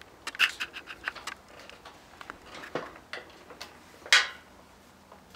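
Metal hand tool clicking and clinking against the carburetor's mounting clamp as it is tightened onto the intake neck of a motorized bicycle engine. There are scattered light ticks, a quick run of clicks about half a second in, and one louder clink about four seconds in.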